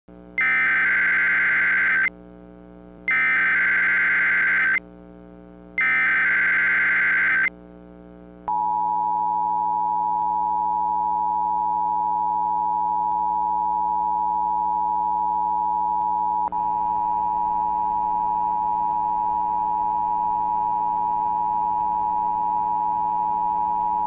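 Emergency Alert System test signal. First comes the SAME header: three identical buzzing bursts of digital data, each under two seconds long, with short gaps between them. Then, about eight seconds in, the steady two-tone EAS attention signal (853 and 960 Hz) sounds without a break, over a faint steady hum.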